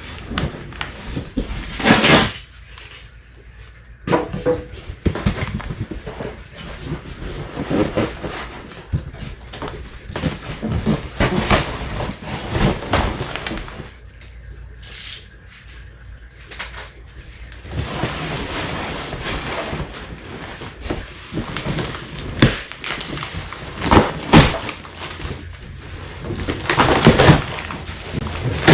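Packaging of a shipped dirt bike being handled and pulled apart: stretches of rustling and crinkling, with scattered knocks and thuds, the sharpest about two seconds in and twice near the end.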